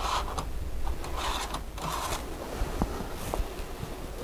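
Rustling of leather welding gloves and apron as the welder handles the electrode holder and its cables, in a few short swishes, then light clicks and knocks near the end.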